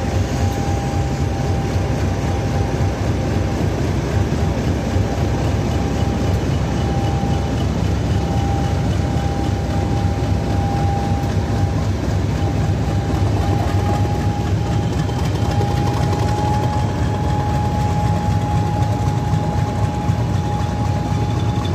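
Class 50 diesel locomotive's English Electric 16-cylinder engine under power as the loco pulls slowly away, a steady deep rumble with a steady high whine over it.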